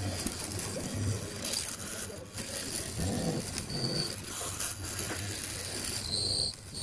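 Hollow-chisel mortiser running, its square chisel and auger plunging into pine to cut a mortise, over a steady low motor hum. Two short high squeals come about four seconds in and near the end.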